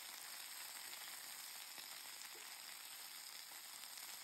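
Sugar snap peas sizzling faintly and steadily in hot oil in a stainless steel frying pan.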